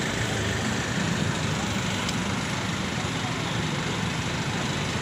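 A coach's engine running steadily as the bus pulls away, mixed with surrounding traffic of motorcycles and minibuses.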